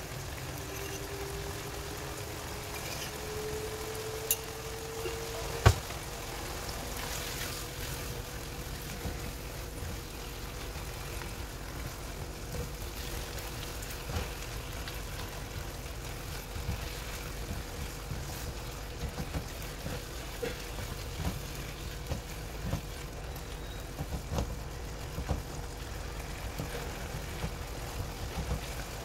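Chopped tomatoes frying softly in a nonstick wok over a steady low hum, with a silicone spatula stirring and tapping the pan now and then. A faint whine rises in pitch over the first six seconds and then holds steady, and two sharp knocks come about four and six seconds in.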